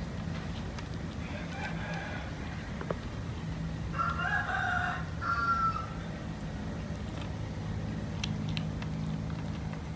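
A bird calls in the background about four seconds in: one pitched call in two parts lasting under two seconds, over a steady low hum. There are a few faint clicks near the end.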